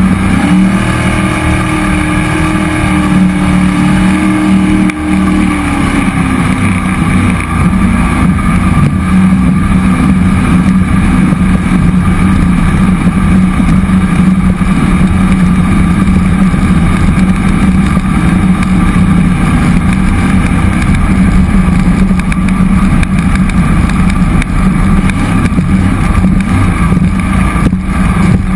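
Cammed 5.3-litre LS V8 in a 1976 Thompson Sidewinder jet boat, driving a Berkeley jet pump and running steadily under way. It is loud and holds an even pitch, with a second, higher tone for the first few seconds that fades out about six seconds in.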